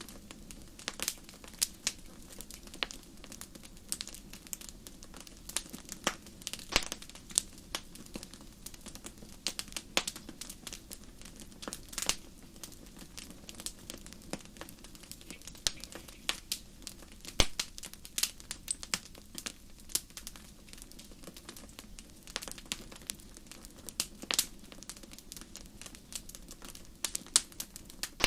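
Wood campfire crackling: irregular sharp pops and snaps, a few louder than the rest, over a faint steady low murmur of the flames.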